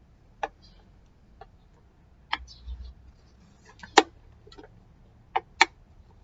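Scattered sharp clicks and taps of small hard parts and tools being handled, about seven at uneven intervals, the loudest about four seconds in, with a brief low rumble between them.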